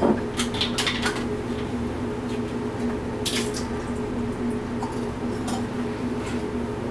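Small clicks and knocks of a plastic cap being worked off a glass fermenting jug by hand, over a steady low hum.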